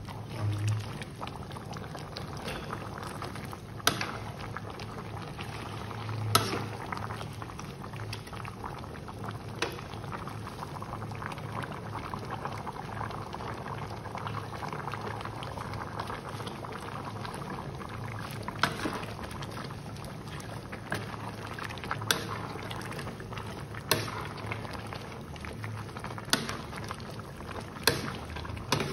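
Soup boiling in a large aluminium pot, a steady bubbling. A metal ladle clinks sharply against the pot several times as the soup is stirred.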